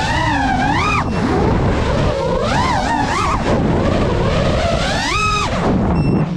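FPV freestyle quadcopter's motors and propellers whining, the pitch swooping up and down again and again with the throttle. The biggest rise comes about five seconds in. Under it runs a steady low rush of noise.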